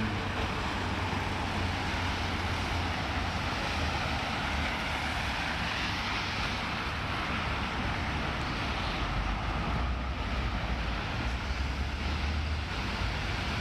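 Heavy rain and wet-road traffic making a steady hiss, over the low, steady rumble of idling bus engines.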